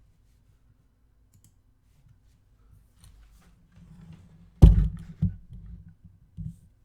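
Hands handling a trading card box and its contents: light clicks and taps, then one loud sharp knock a bit past halfway, with a smaller knock about half a second later and another near the end.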